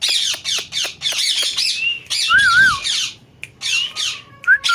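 Pet parrot making a rapid run of short, harsh squawking calls, with a short wavering whistle about halfway through and a steady whistled note near the end.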